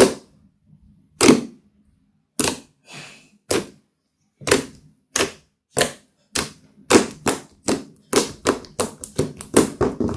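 Fingers poking and pressing into a lump of thick slime, giving sharp pops as trapped air is squeezed out. The pops come one at a time at first, then quicken to several a second near the end.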